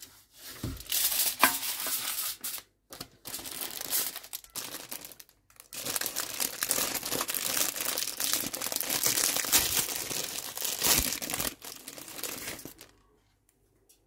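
Aluminium foil and plastic packaging crinkling and rustling as hands handle them. It comes in several stretches with short pauses and stops about a second before the end.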